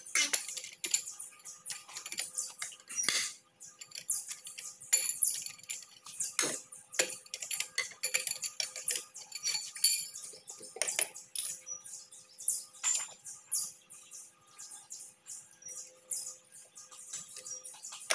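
Metal clicks and clinks of a lug wrench and steel wheel nuts as the nuts on a pickup's rear wheel are loosened and turned off by hand, coming irregularly several times a second.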